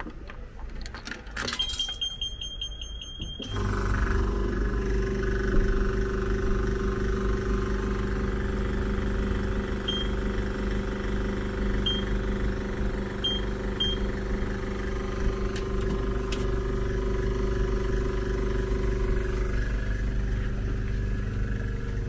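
Coin-operated tyre air machine: coins clicking into the slot, a quick run of high beeps, then the machine starts and runs with a steady hum. Short single beeps sound four times as the pressure-setting buttons are pressed.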